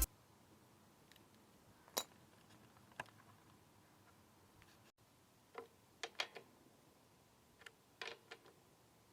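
Scattered light clicks and taps of small parts and tools being handled on a lawn mower, irregular and sparse, over quiet room tone.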